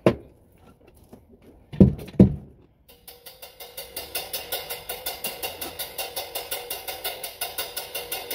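A few loud drum hits, then a steady fast tapping on a cymbal with a drumstick, about five strokes a second, laying down a drum and bass beat.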